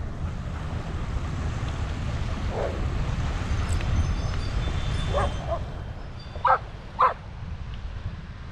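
A dog barking: a few fainter yips, then two sharp barks about half a second apart near the end, the loudest sounds here.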